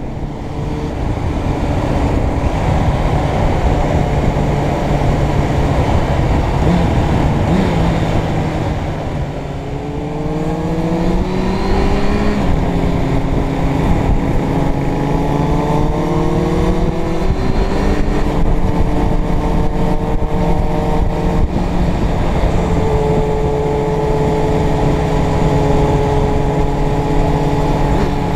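Suzuki Bandit 600's inline-four engine running at road speed under wind and road noise. About a third of the way in it accelerates through two gears, its pitch climbing and dropping at each shift, then it settles into a steady cruise.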